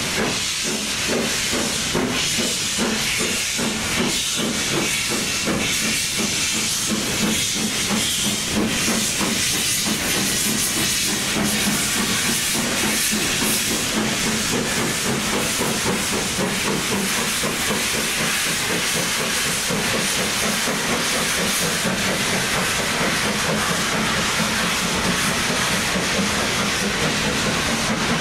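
Steam locomotive working a train away from a station with a loud, continuous hiss of escaping steam, as from open cylinder drain cocks. A regular beat of exhaust chuffs runs under the hiss for the first several seconds, and the coaches roll past near the end.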